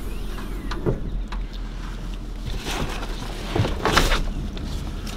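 Bags being handled and lifted out of a car boot: a few short rustles and soft knocks, the loudest about four seconds in, over a steady low hum.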